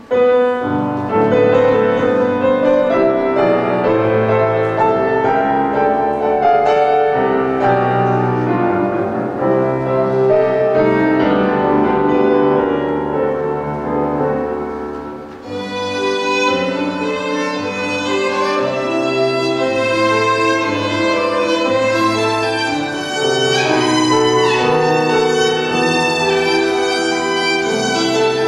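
Violin with grand piano accompaniment playing a classical piece. The music starts at once, dips briefly about halfway, then the violin comes through brighter.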